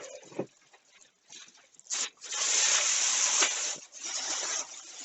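Packaging rustling and rubbing in short bursts as a computer case is unpacked, the longest lasting over a second from about two seconds in.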